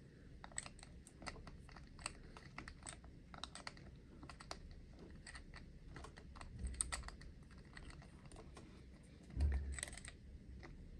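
Faint, rapid small clicks and ticks of an RC car wheel being fitted to its hub and its wheel nut turned with a small tool, with a soft bump about two-thirds of the way in and a louder one near the end.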